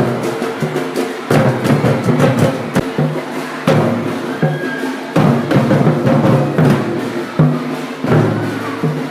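Music with drums and percussion, the drum hits standing out over low sustained tones.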